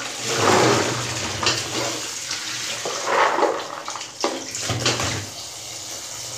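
Tap water running into a plastic container of soaked chickpeas in a steel sink, with louder swells of splashing as the chickpeas are swirled by hand and the rinse water is tipped out through a plastic strainer basket.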